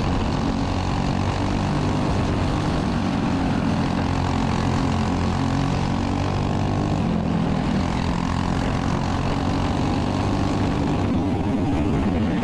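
Racing go-kart (sportsman flat kart) engine heard from on board at speed, a loud, steady drone whose pitch shifts slightly as the kart laps.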